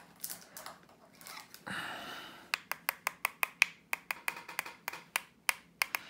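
Brief rustling as the tools are picked up, then from about halfway a quick run of sharp light taps, about five a second. A wooden handle is knocking against the plastic barrel of an ink-loaded water brush, flicking splatters of distress ink onto the card.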